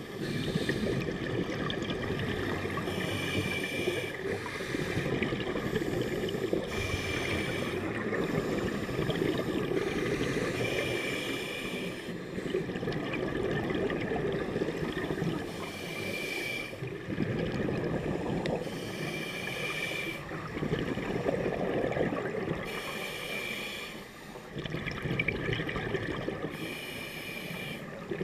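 Scuba regulator breathing underwater: a hissing inhale about every four seconds, each followed by the rumble of exhaled bubbles.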